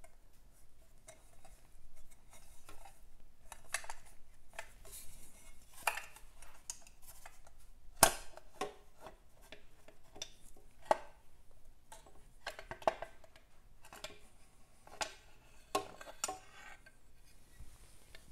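Light metallic clicks, taps and scrapes as an aluminium magneto cowl is worked loose and pulled off a Vincent V-twin engine's cases, with a sharper knock about eight seconds in.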